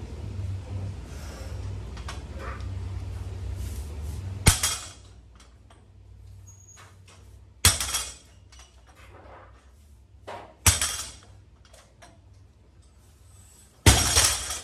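Loaded barbell with weight plates set down hard on the gym floor four times, about three seconds apart, between deadlift reps. Each is a heavy thud with the plates clanking on the bar.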